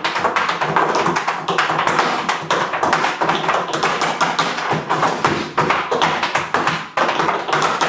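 Tap shoes striking a wooden tap board in a fast, dense, unbroken run of taps.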